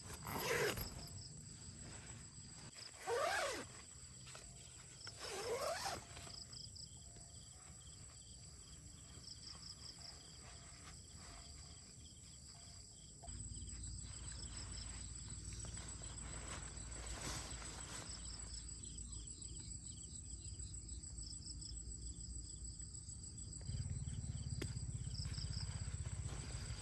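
Outdoor nature sounds: three loud animal calls, each rising and falling, in the first few seconds, over a steady high insect-like buzz with pulsing chirps. A low rumble comes in about halfway and grows louder near the end.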